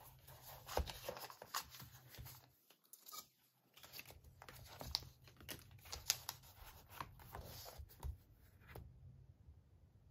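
Paper rustling and crinkling as hands handle and press down the pages of a handmade paper junk journal. There is a short lull about a third of the way in, and the sound stops near the end.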